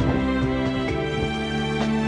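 Background music: held chords with a few note changes and light taps.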